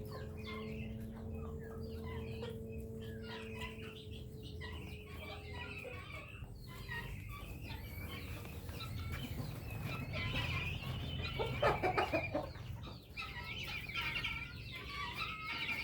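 Chickens clucking: a steady stream of short calls, with a louder flurry about twelve seconds in.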